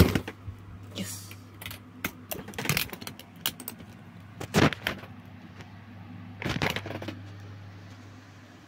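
Irregular knocks, scrapes and rustles of a phone being handled and moved, over a steady low hum.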